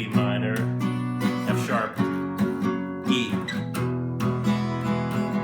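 Acoustic guitar strummed in a steady rhythm, playing chords in the key of A and changing chord a few times.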